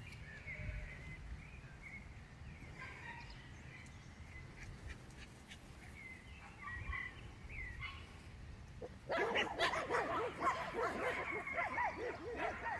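Several small Papillon dogs barking. About nine seconds in, many short barks break out at once and overlap; before that there are only a few faint, high chirping calls.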